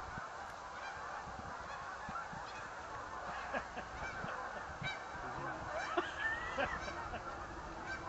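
A flock of geese honking, many calls overlapping in a continuous chorus, with a few nearer, clearer honks standing out about six seconds in.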